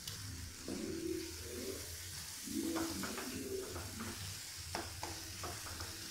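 Wooden spatula stirring and scraping a thick onion-tomato masala in a non-stick frying pan over a light sizzle, with several short scrapes against the pan; the masala is being fried until the oil separates from the spices. Two low cooing calls sound in the background in the first half.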